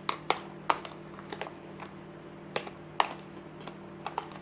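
A utensil clicking against a small basin in irregular light taps while sliced okra is stirred into beaten egg, over a faint steady hum.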